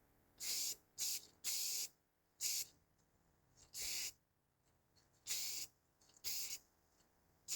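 Spray can of primer being sprayed in about eight short, hissing bursts, with short pauses between them, as a coat is laid on.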